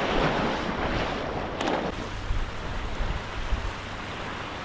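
Small waves washing onto a sandy beach, a swell of surf in the first couple of seconds, with wind rumbling on the microphone.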